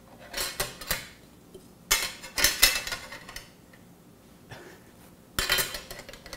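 Manual metal pasta machine clattering and rattling on the countertop as dough is worked through its cutter, in three spells of clatter, the second the loudest.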